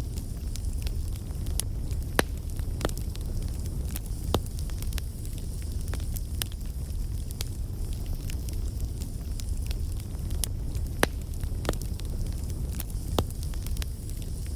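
Bonfire burning: a steady low rumble under irregular sharp crackles and pops, a few of them louder.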